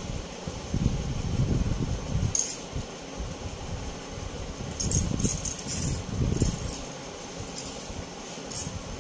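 Bangles clinking and jingling against each other as they are slid onto the wrists, in several short bursts, busiest between about five and seven seconds in, over the dull rub of hand movement.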